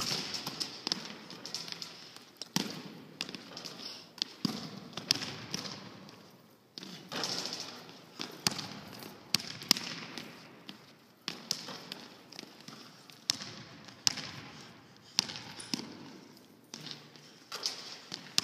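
Basketball bouncing on a hardwood gym floor and hitting the hoop as it is dribbled and shot, a series of sharp hits at uneven intervals. Each hit echoes through the empty gym.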